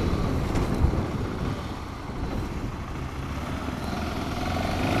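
Motorcycle running on the road, its engine and road and wind noise heard from the rider's camera. The sound eases off around the middle, then builds again near the end as the engine note rises.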